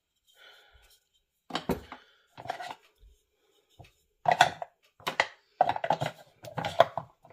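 Wooden calendar date cubes being turned over and knocked into their wooden stand: a string of short wooden clacks and knocks in about six clusters, the loudest in the second half.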